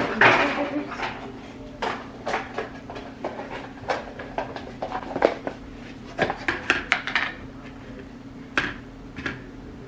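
Kitchen containers and dishes being rummaged through and handled: a quick run of knocks, clicks and clatter, busiest around five to seven seconds in, over a steady low hum.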